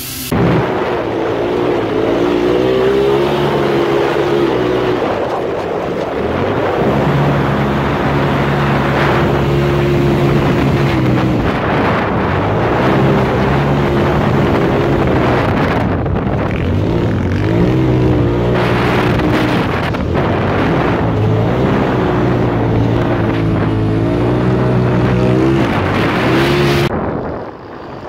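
Side-by-side UTV engine running hard on and off the throttle, its pitch rising and falling again and again as the revs change; the sound stops abruptly near the end.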